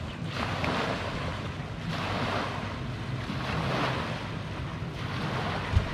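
Small lake waves lapping on a sandy shore, each wash swelling and fading about every two seconds, with wind rumbling on the microphone. A brief low thump near the end.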